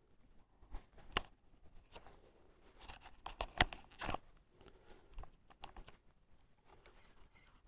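Faint handling noise: scattered short clicks and rustles of clothing and fishing tackle, with a sharper cluster about three to four seconds in.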